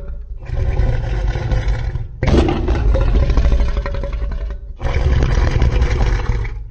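Three roars of the 1998 TriStar Godzilla creature sound effect, one after another, each about two seconds long and ending abruptly; the second starts sharply about two seconds in.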